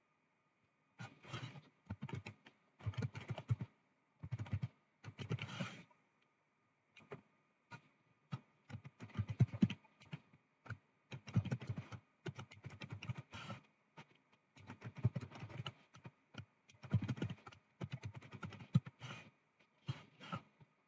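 Computer keyboard being typed on in short runs of key clicks with pauses between them.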